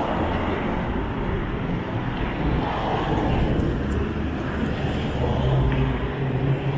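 City street traffic noise: a steady wash of passing vehicles, with a low engine hum growing stronger about five seconds in.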